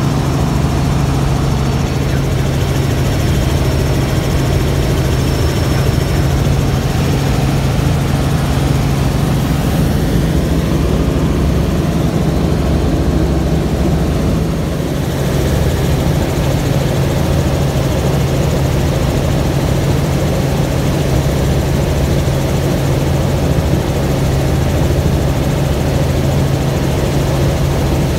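Helicopter engine and rotors running steadily in flight, heard from inside the cabin as a loud, even low hum with rushing noise above it. The loudness dips slightly for a moment about halfway through.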